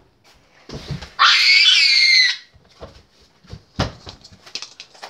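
A child's loud, high-pitched scream about a second in, lasting about a second, followed by several short thumps, the loudest near four seconds in.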